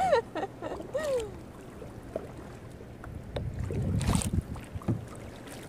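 Kayak paddling on calm river water: paddle blades dipping and splashing, with wind buffeting the microphone in a gust about four seconds in. A brief laugh-like vocal cry sounds at the very start and again about a second in.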